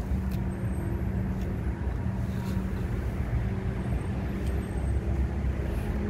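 Steady low hum of an idling engine, with a few faint light clicks over it.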